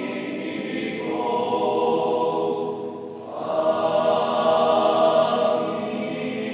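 Small male choir singing a cappella, holding long sustained chords. It moves to a new, louder chord about three seconds in.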